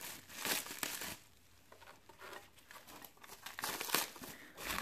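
Thin clear plastic foil wrap crinkling as it is pulled off a model car by hand. The crackling comes in bursts about the first second and again near the end, with a quieter stretch in between.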